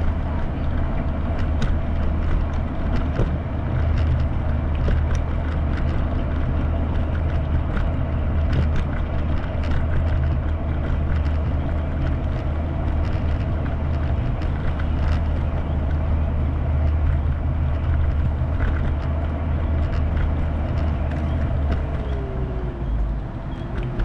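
Steady low rumble of wind on the microphone and wheels rolling over a paved path while riding, with a faint steady whine and scattered light clicks and rattles.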